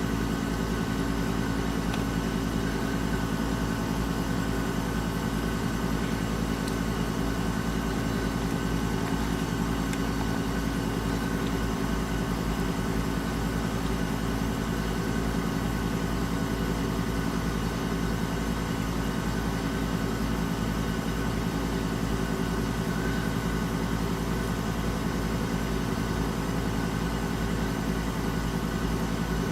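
Bedroom air conditioner running with its compressor on and fan set to high: a steady hum of several constant tones with an even rush of air. The owner says the unit is not cooling the room properly, and doubts the fan is really on high.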